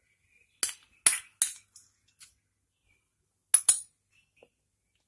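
Metal spoon clinking against a small glass bowl as ghee is scraped out of it: three sharp clinks in the first second and a half, then two close together near the end.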